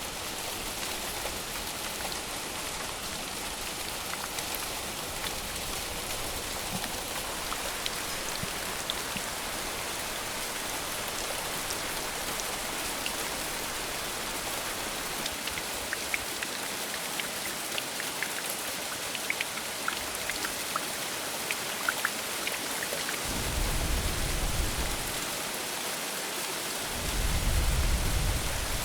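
Heavy rain falling steadily, with scattered individual drips. Two low rumbles come in near the end.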